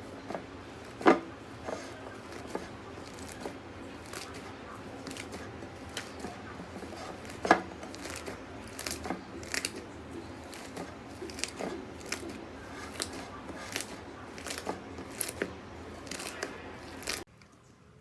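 Slime being pressed and handled, giving irregular sharp clicks, pops and crackles, with a few louder snaps. The sound cuts off suddenly near the end.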